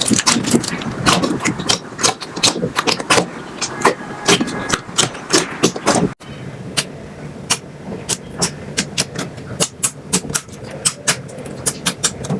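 Slime being squished and worked, giving a rapid run of wet clicking and popping crackles. The sound breaks off sharply about six seconds in and carries on with a slightly sparser, quieter run of pops.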